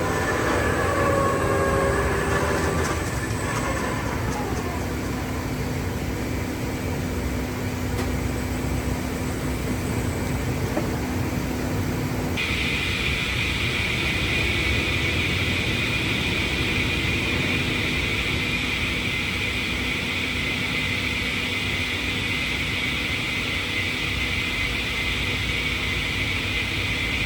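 Steady heavy machinery running in a sawmill. About twelve seconds in, a higher hiss switches on suddenly and holds.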